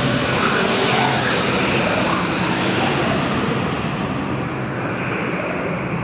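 Horror sound effect: a steady, dense wash of noise with faint held tones in it, its hiss thinning out over the last few seconds.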